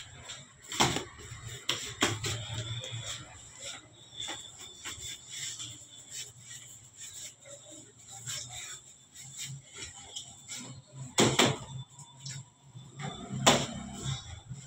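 Bread dough being worked by hand on a steel bakery table: scattered handling noises and a few sharp knocks, two in the first couple of seconds and two near the end, over a low steady hum.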